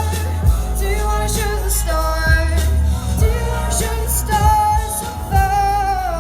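Live pop song: a female singer holding long notes over a backing track with a steady bass and drum beat.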